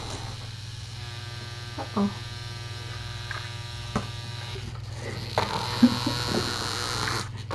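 Small motorized toy bug buzzing steadily as it drives across the mat. A few light knocks come from the kittens batting at toys, with a short cluster of them about five to six seconds in.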